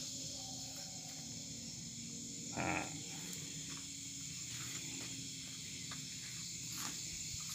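Faint steady night ambience of insects chirring, with a short brief noise about two and a half seconds in.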